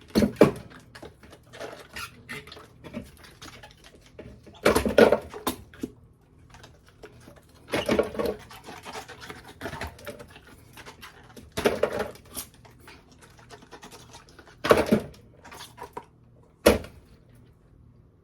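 Big ice cubes knocked out of trays and set onto a hard surface: six loud hard knocks spread roughly three seconds apart, with small clicks and scrapes between them. The cubes come loose easily because the trays were kept in the refrigerator.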